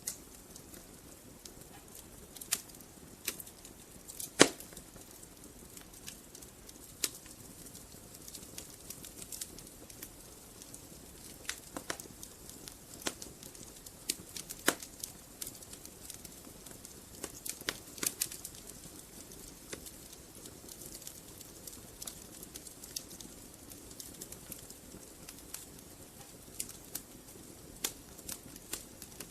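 Wood fire in a fireplace crackling, with sharp, irregular pops over a low steady hiss; the loudest pop comes about four seconds in.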